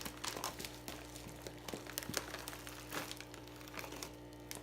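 Plastic fish-shipping bags crinkling and crackling in irregular bursts as they are handled.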